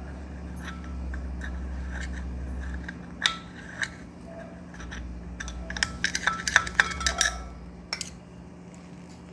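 Light metallic clicks and clinks from ceiling fan motor parts being handled while its bearings are oiled, with a quick cluster of them about six to seven seconds in, over a low rumble.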